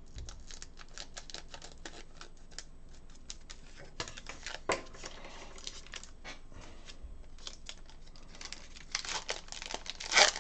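Trading card pack's foil wrapper being handled and torn open: a run of small crinkly ticks, growing into louder crinkling and tearing near the end.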